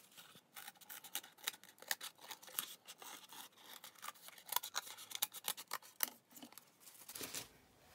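Scissors cutting through cardboard: a long run of short, irregular snips that stops shortly before the end.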